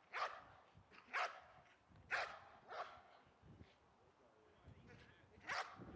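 Malinois-type police dog barking in single sharp barks, about one a second, then a pause of a couple of seconds and one last bark near the end. It is barking at a motionless decoy to hold him at bay, as in the KNPV "stellen" guarding exercise.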